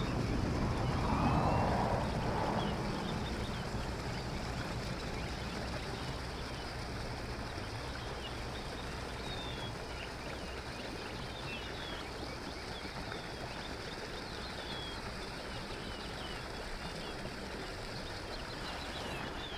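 Steady rushing of water from a spillway, with faint high bird chirps scattered through the second half. A louder rustling noise sits in the first couple of seconds.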